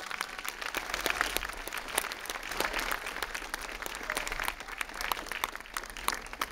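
A small audience applauding, with many individual hand claps heard in an uneven patter.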